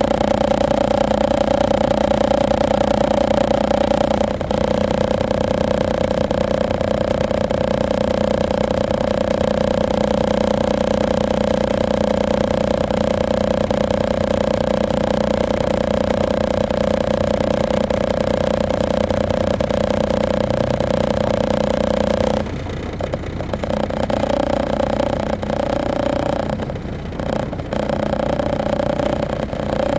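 The Detroit Diesel Series 60 engine and Allison automatic transmission of a 2002 MCI D4500 coach, heard from inside the cabin while driving: a loud, steady drone with a held tone. About three-quarters of the way through, the tone drops away and the sound turns quieter and uneven, as the engine comes off power.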